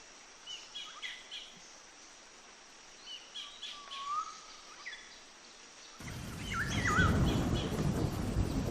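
Songbirds chirping: scattered short chirps and a few quick whistled notes that slide up and down. About six seconds in, a loud low rumbling noise comes in under the calls.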